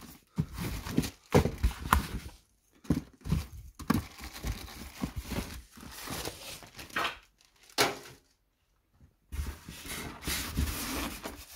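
Packaging being handled: polystyrene foam inserts knocking and rubbing, and plastic bags rustling, in irregular bursts with a pause of about a second some eight seconds in.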